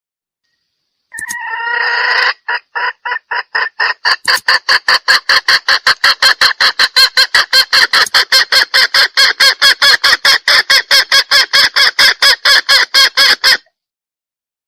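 Chicken hen calling: one drawn-out call about a second in, then a long run of rapid, even clucks, about five a second, that stops abruptly near the end. This is the hen call used as a lure to draw a rooster.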